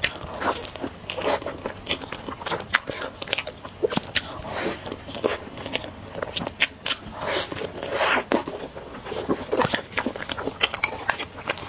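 Close-miked eating: crunchy bites and chewing, a steady run of irregular crisp clicks and crackles.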